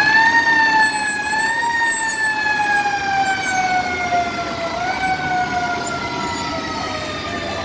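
Fire engine siren sounding a long, slow wail that sinks steadily in pitch, pushed back up briefly about two seconds in and again about five seconds in.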